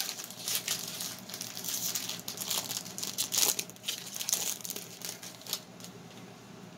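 Foil wrappers of baseball card packs crinkling in gloved hands as a pack is handled and opened, in short irregular bursts that die away near the end.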